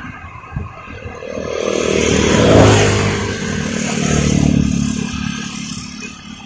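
Combine harvester's engine running, rising in pitch and swelling in level about two seconds in, with a second swell a couple of seconds later.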